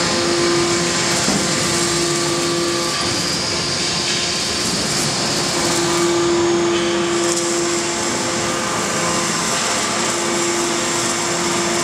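Large rail-mounted hydraulic forging manipulator running: a steady mechanical hum and hiss, with a mid-pitched whine that sounds for a few seconds, drops out and comes back twice.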